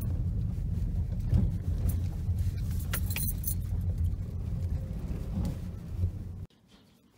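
Low rumble of a car driving slowly along a rough road, heard from the moving vehicle, with a few brief rattles about three seconds in. The sound cuts off abruptly near the end.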